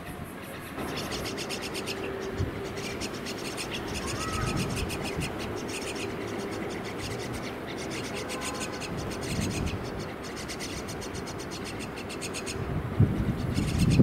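Common myna chicks begging in the nest, a rapid harsh chatter repeated many times a second with short breaks, as the adult feeds them. Under it runs a steady low hum, and a few low thuds come near the end.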